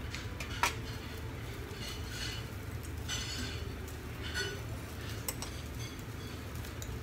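Eating utensils clinking and scraping against plates and dishes at a table-grill meal. There is a sharp clink just over half a second in and a few short scrapes later, over a steady low hum.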